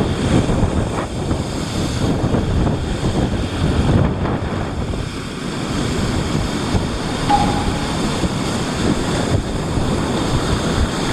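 Sea surf breaking and washing over a rocky shore: a steady rushing that swells as each wave hits, with wind buffeting the microphone.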